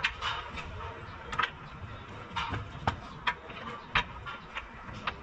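Long-handled ratchet on a front lower control arm bolt, giving uneven metallic clicks and clinks as it is worked back and forth, with a sharper knock right at the start and another about four seconds in.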